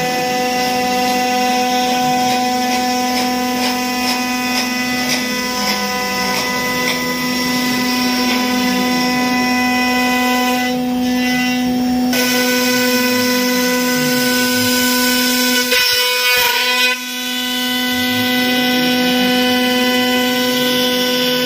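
CNC router spindle running at a steady high whine while its cutter grooves an MDF sheet, with the rasp of the bit through the board. The whine cuts out briefly about three quarters of the way through, then returns.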